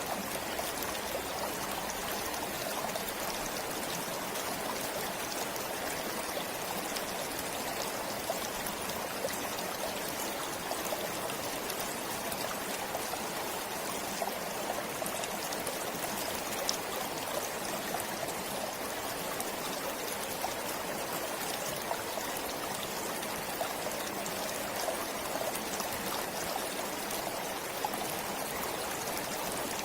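Stream of water flowing steadily, with small trickles and splashes.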